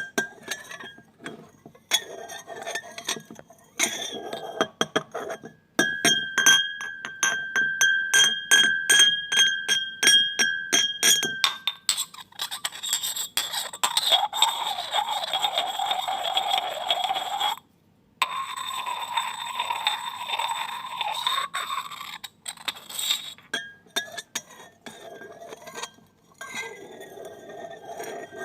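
Glass clinking: scattered taps, then a quick run of many clinks over a held ringing tone, then a longer, rougher grating stretch of glass against glass in the middle, and scattered clinks again near the end.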